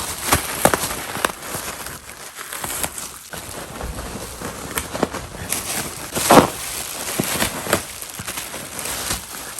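Plastic air-cushion packaging crinkling and crackling in irregular bursts as a dog bites and paws at it, with a louder sharp sound about six seconds in.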